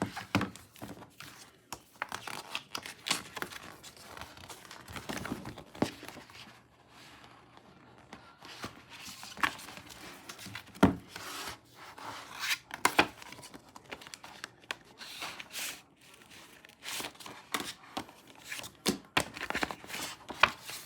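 Album packaging being torn open and handled: tearing and crinkling with irregular sharp clicks and taps.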